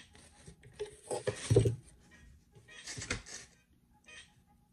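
Close-up eating and food-handling sounds from a seafood boil: two bursts of crackling, clattering noise, the louder, with a thud, about a second and a half in and a shorter one about three seconds in.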